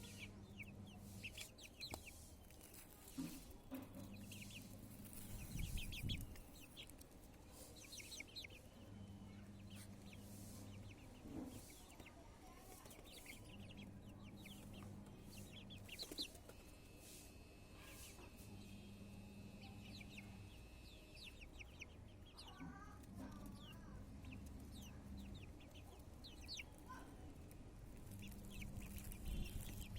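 Chickens: chicks cheeping in many short high peeps, with clucking. A faint low hum switches on and off every four to five seconds.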